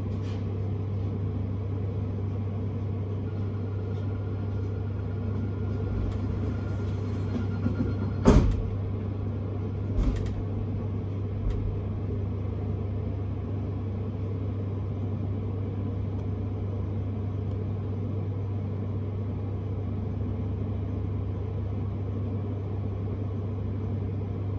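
Inside an S-Bahn electric train: a steady low hum and rumble, with one sharp clunk about eight seconds in and two lighter knocks a few seconds later.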